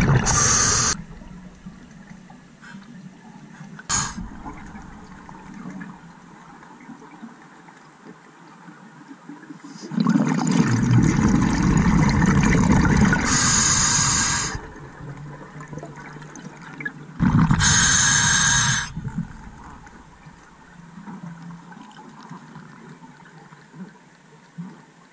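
A scuba diver breathing through an open-circuit regulator underwater. There is a short gush of bubbles at the start, then long bursts of gurgling exhaled bubbles about 10 and 17 seconds in, each with a sharp hiss, separated by quiet stretches.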